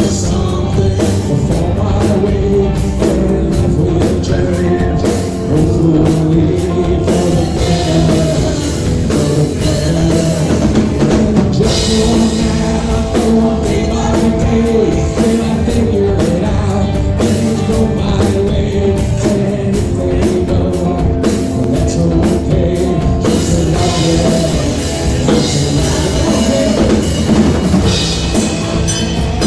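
Rock music with a singer and a full drum kit playing, loud throughout.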